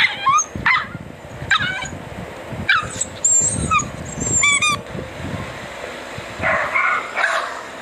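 Dachshunds barking: a run of short, high-pitched yips and squeaky whines, then a fuller bark about six and a half seconds in.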